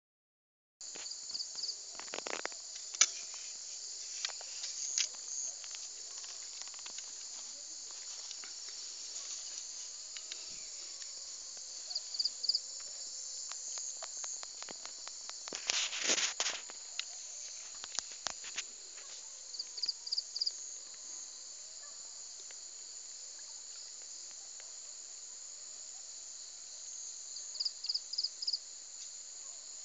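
Steady high-pitched insect chorus with a few short runs of three or four chirps. Scattered knocks and rustles sound over it, the loudest cluster a little past the middle.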